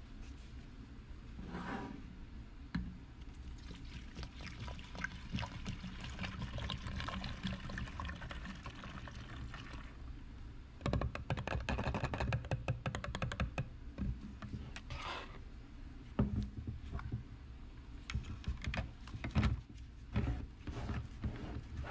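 Diluted car-wash solution poured from a plastic spray bottle into a plastic pump-sprayer jug, splashing and glugging, loudest in the middle. Near the end, plastic clicks and knocks as the pump head is fitted and screwed onto the jug.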